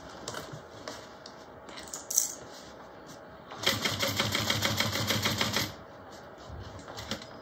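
Juki industrial sewing machine stitching through canvas: a short run of about two seconds of rapid, even stitch strokes in the middle. Before it come scattered small clicks and rustles of the fabric being positioned.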